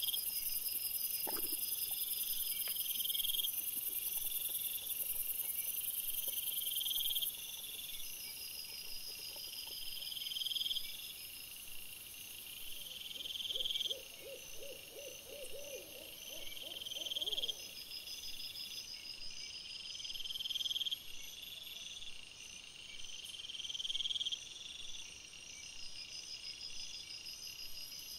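Night insects chirping in a steady rhythm: a rising chirp about every two seconds over a constant high trill. About halfway through, a rapid run of lower pulsing calls lasts about four seconds.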